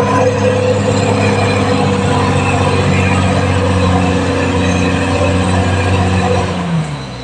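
Caterpillar D6R XL bulldozer's diesel engine running steadily at high revs, then dropping in pitch and easing off briefly near the end.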